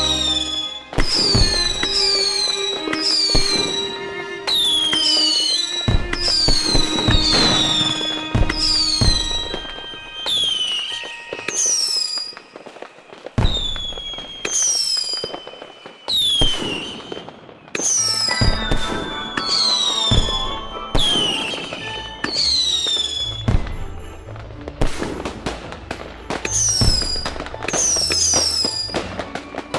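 Fireworks going off in quick succession: many short whistles, each falling in pitch, one after another about every second, with sharp cracks and bangs among them. Music plays underneath.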